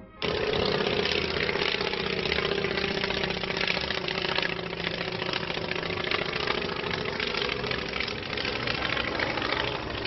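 A biplane's piston engine running in flight overhead, cutting in suddenly at the start, with a steady note that slowly falls in pitch as the plane passes.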